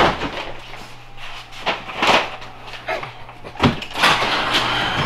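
Knocks and thumps of a door and cardboard boxes being handled, the sharpest a little past halfway, over a steady low hum.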